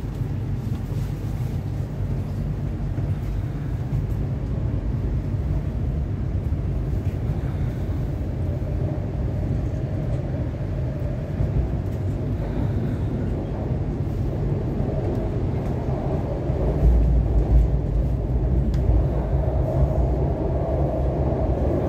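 MTR Kwun Tong Line C-Train heard from inside the car while running between stations: a steady rumble of wheels on track with a faint motor tone that grows stronger in the later seconds, and a heavier low rumble about seventeen seconds in.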